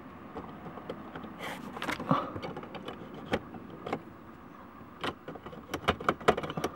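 Sharp plastic clicks and knocks from an OBD2 scanner cable's connector being handled and pushed into a car's diagnostic port under the dashboard, with a cluster of clicks about five to six and a half seconds in.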